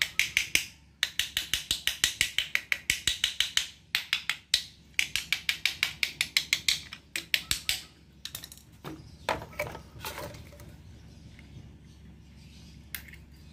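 Screwdriver tapping rapidly on a car fuel filter, about seven light clicks a second in short runs, to knock dirt loose while the filter is cleaned with gasoline. A little past halfway the fast tapping stops, and a few scattered knocks follow.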